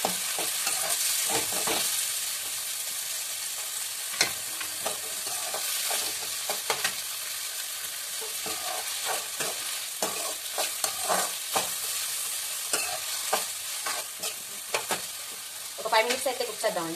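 Chopped tomatoes, onions and green chillies sizzling in hot oil in a metal kadai. A steel spoon stirs them, scraping and clicking irregularly against the pan.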